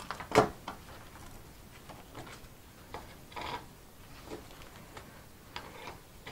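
Scattered light metallic clicks and short scrapes from a LuK clutch disc's torsional damper coil springs and steel hub plates being handled and worked out by gloved hands, the sharpest click about half a second in.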